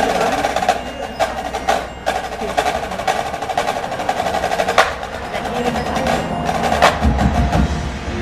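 Marching band playing a percussion-led passage: sharp clicks and hits over a held band tone. A deep low sound swells in about seven seconds in.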